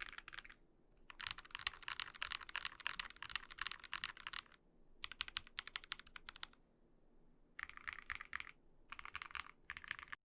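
Typing on a KBD8X MKII mechanical keyboard with lubed NovelKeys Cream linear switches, a full brass plate, case foam and GMK keycaps: rapid keystroke clatter in about five bursts with short pauses between them.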